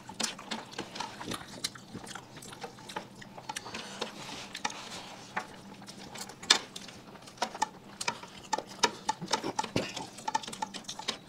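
Close-up eating sounds: chewing and lip-smacking with irregular small clicks and taps of food being handled on plates.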